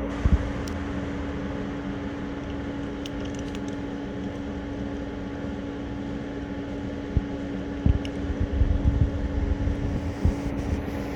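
A steady mechanical hum holding one constant tone over a background of noise, like a machine or air-conditioning unit running. Low bumps and rumbles, like wind or handling on the microphone, come once just after the start and several times in the last few seconds.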